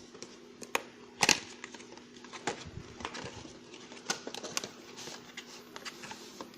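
A gaming mouse's retail box being opened and handled: scattered clicks, taps and rustles of packaging, the sharpest knock about a second in, over a faint steady hum.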